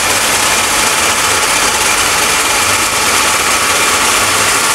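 Metal lathe running with an alloy car rim spinning in its chuck while the cutting tool re-turns the rim's face: a steady, loud machining noise with a faint high whine over a low hum.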